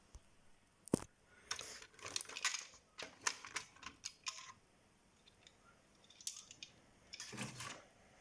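Small clicks and scrapes of a plastic climate-control module housing being handled and pried apart by hand, with one sharper click about a second in.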